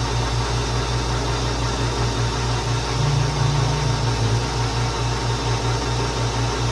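A large metal lathe running steadily: a motor-and-drive hum with a fast, even pulse over a broad hiss.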